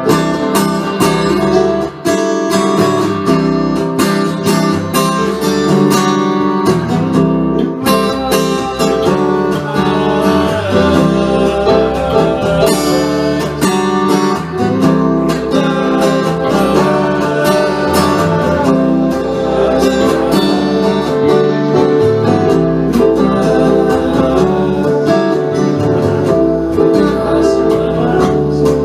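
Acoustic guitar music: an instrumental passage of picked and strummed notes that carries on steadily.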